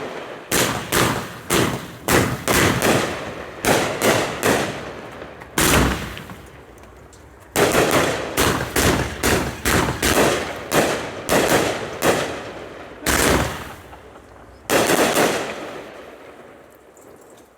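A 500-gram firework cake firing: volleys of sharp bangs in quick succession, broken by short pauses about six, twelve and fourteen seconds in. The last volley ends about fifteen seconds in.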